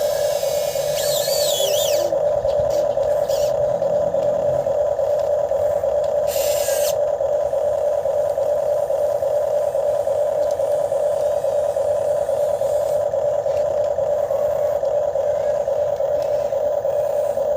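RC excavator's motor giving a steady, slightly warbling whine, with brief high hisses about a second in and again about six seconds in.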